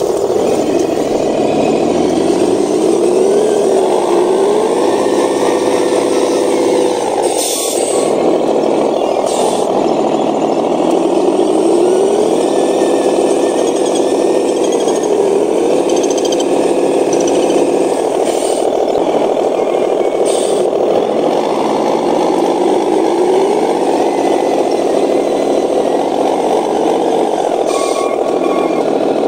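Motor and gearbox of a handmade RC miniature truck whining as it drives, the pitch climbing as it speeds up, holding steady, then dropping, over and over; a few short knocks come through now and then.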